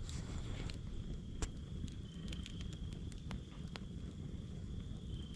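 Wood campfire crackling, with scattered sharp pops over a low rumble, and a thin steady high tone running underneath.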